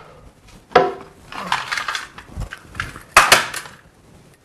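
Kitchen cupboard and worktop clatter: wooden knocks and crockery and cutlery sounds as someone rummages through cupboards, with several sudden knocks, the loudest about three seconds in.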